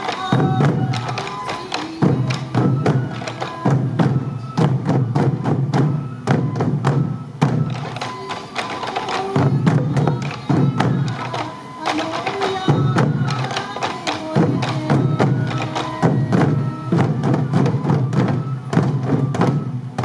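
Many sansa odori taiko drums, worn at the waist and struck with sticks, beaten together in a rhythmic pattern of heavy strikes. A high flute melody plays over the drumming.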